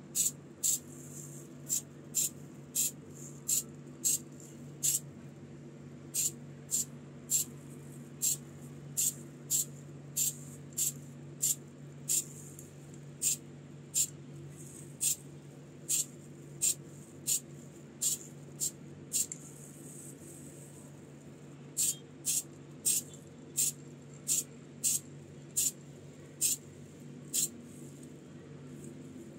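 Aerosol can of black spray paint, Diton Black, sprayed in quick short bursts: dozens of brief hisses, about one or two a second, with a pause of about two seconds about two-thirds of the way through. A steady low hum runs underneath.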